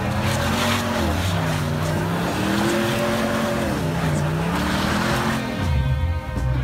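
Truck engine revving up and down several times while a rear tyre spins in snow, with a rushing hiss from the spinning tyre and the thrown snow. A music track comes in near the end.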